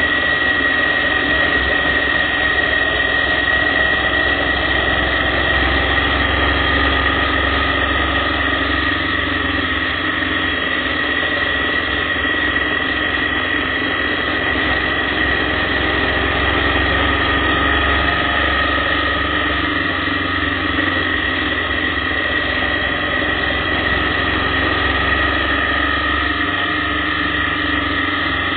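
Motorcycle cruising steadily along a winding road: engine drone mixed with rushing wind and road noise, with a constant high whine over it.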